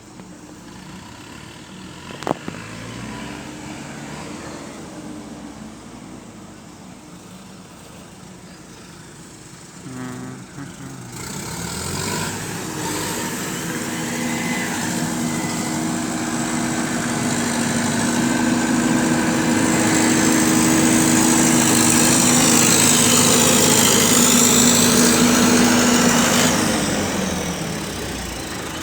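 John Deere W70 combine harvester running, with a sharp click about two seconds in. About eleven seconds in it comes up to a louder, steady drone that keeps building, then eases off shortly before the end.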